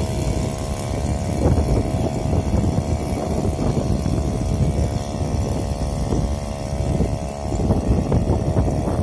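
Small engine of a modified water pump running steadily for watering shallots.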